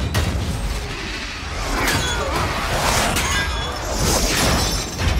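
Movie sound design of giant tracked machinery on the move: a constant deep rumble with metallic screeches and crashes, the loudest crashes about three and four seconds in.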